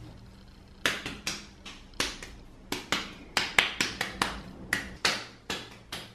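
A rapid, uneven series of sharp slaps, about two to three a second, starting about a second in: hands patting a lump of clay between the palms to shape it into a ball for throwing.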